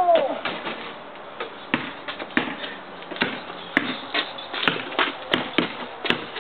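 Basketball bouncing on an asphalt driveway: scattered bounces at first, then a quicker, steadier dribble in the second half.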